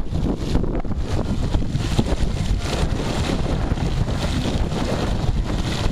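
Wind buffeting the microphone over a steady wash of splashing water in a shallow pool.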